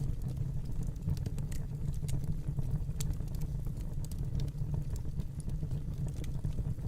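Wood fire in a fireplace crackling: irregular sharp pops and snaps over a steady low rumble of the flames.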